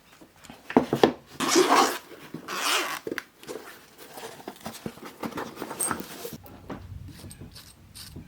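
Mechanical keyboard parts clicking and rubbing: a run of irregular small clicks, with two longer scraping sounds about one and a half and two and a half seconds in.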